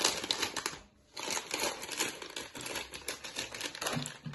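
Crinkling and rustling of a foil snack packet as it is snipped open with scissors and handled and tipped over a plastic bowl, with a brief lull about a second in.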